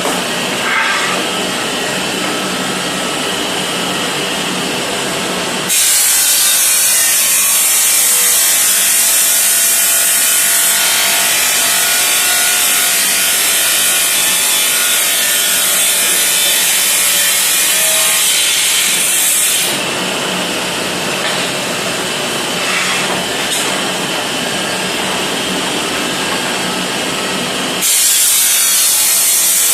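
Automatic tile-cutting machine running with a steady hum. About six seconds in, its blade bites into a glazed tile with a loud, high hiss that lasts about fourteen seconds before dropping back to the running sound, and a second cut starts near the end.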